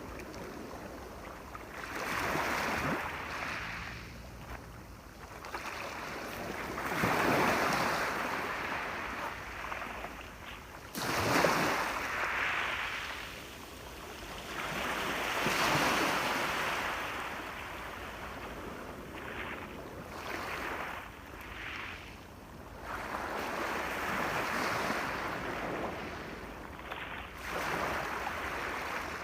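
Ocean waves breaking and washing up the shore, the surf swelling and falling back every few seconds, with one sharper crash about eleven seconds in.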